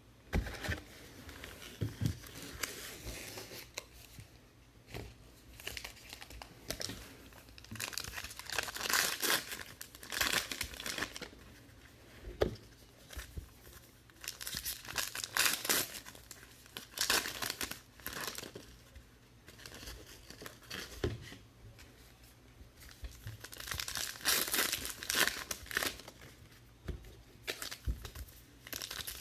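Trading-card pack wrappers being torn open and crinkled by hand, in repeated bouts of tearing and rustling a few seconds apart.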